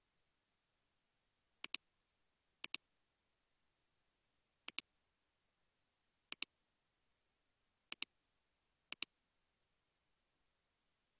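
Computer mouse clicking six times at uneven intervals, each click a quick double tick of button press and release.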